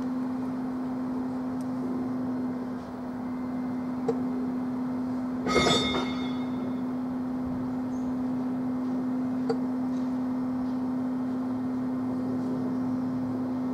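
Class 47 diesel-electric locomotive's Sulzer twelve-cylinder engine idling with a steady hum. About halfway through, a short, loud burst cuts in for about half a second.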